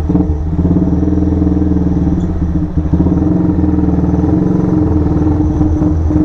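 Motorstar Z200 motorcycle engine, converted to a classic build with a custom exhaust pipe, running steadily at low revs as the bike rolls off in first gear.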